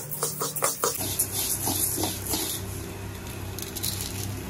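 Dry lentils (split black gram) being dry-roasted in a steel kadai and stirred with a metal spatula. The grains scrape and rattle against the pan in quick strokes for about the first second, then patter more softly as they are lifted and tossed, over a low hum.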